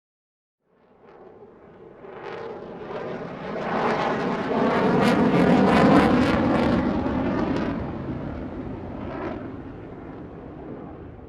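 An airplane flying past: it rises out of silence about a second in, grows loudest around the middle, then slowly fades away.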